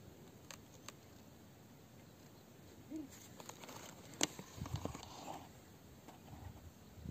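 Quiet outdoor background with a few small, faint clicks, a sharper tick about four seconds in, and brief low handling rumble just after it.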